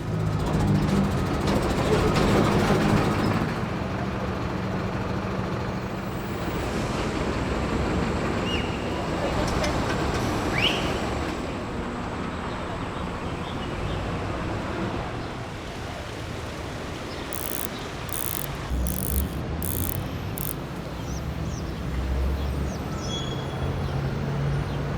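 Steady outdoor background noise with a low, traffic-like rumble and a few faint short squeaks.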